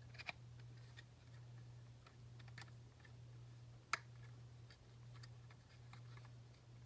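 Near silence: a low steady hum with a few faint clicks of small plastic parts being handled, and one sharper click about four seconds in.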